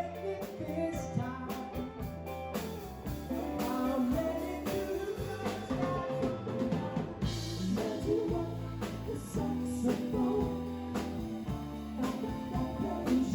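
Background music with guitar, drums and a singing voice, in a rock or blues style.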